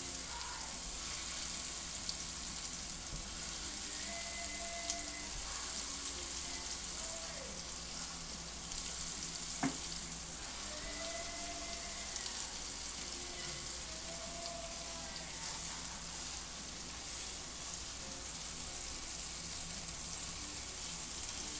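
Raw meatballs sizzling in hot oil in an electric skillet as more are set down in it, a steady frying hiss. A single sharp tap about ten seconds in.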